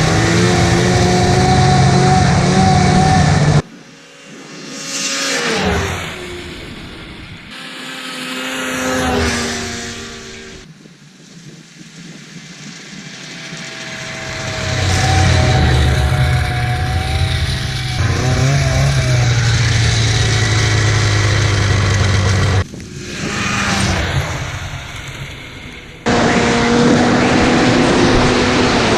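1995 Arctic Cat ZR 580 snowmobile's two-stroke twin engine running hard. It is loud and close in some stretches, cut off suddenly between them, and in others rises and fades with a gliding pitch as the sled passes by.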